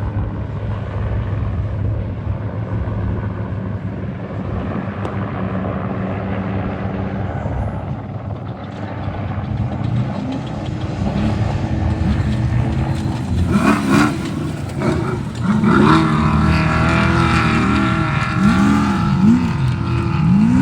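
Off-road race truck engine running at a steady drone, then from about halfway revving up and down again and again, each rev rising and dropping back within about a second.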